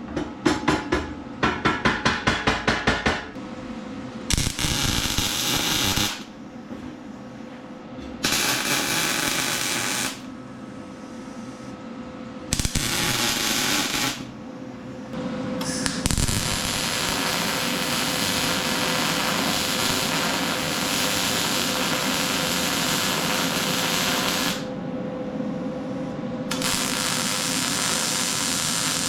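Arc welding in separate runs of about two to nine seconds, the arc starting and stopping several times. It opens with a quick stutter of short strikes, about five a second.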